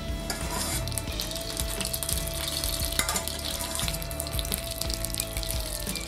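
Butter and egg sizzling and crackling in a frying pan under a folded omelette soufflé, with faint background music.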